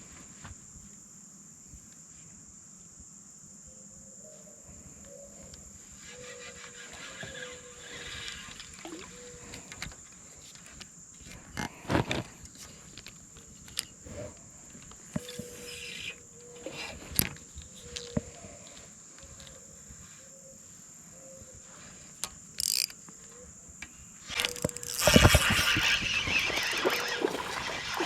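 Steady high-pitched insect drone, with scattered knocks and a louder burst of rushing noise near the end.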